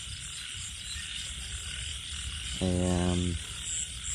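Night chorus of frogs and insects: a steady high-pitched chorus with rapid pulsing trills.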